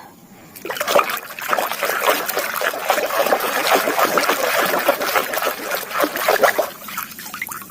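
Water splashing and trickling over a muddy toy as it is washed clean, starting about half a second in and dying away near the end.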